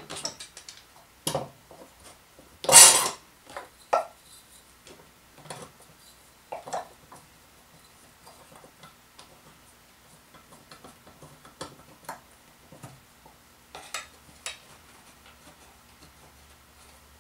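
Steel bar clamp being handled and fitted across a glued-up wooden drawer: scattered metal clinks and knocks on the bench, with a short louder rattle about three seconds in, then lighter clicks and rubs as the clamp jaws are slid into place and snugged up.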